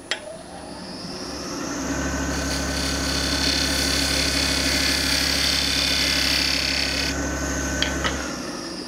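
Wood lathe switched on with a click, its motor whine rising as it spins up over about two seconds. It runs steadily while a detail tool takes a tiny bit more off a lidded box's tenon. It is switched off near the end and winds down.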